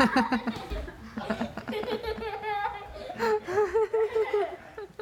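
Several people laughing together, with chuckles and a run of rhythmic laughs about three seconds in.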